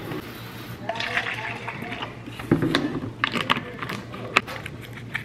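Clicks and rustles of hands and a coat sleeve moving close to the microphone while a plastic bottle is handled, with faint voices in the room.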